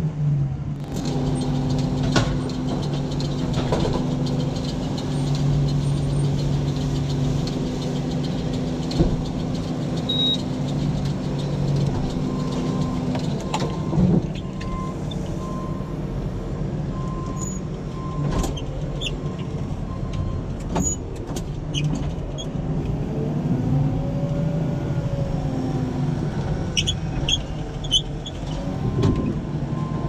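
Tractor engine running steadily, with scattered clicks and knocks. Partway through, a short beep repeats for several seconds.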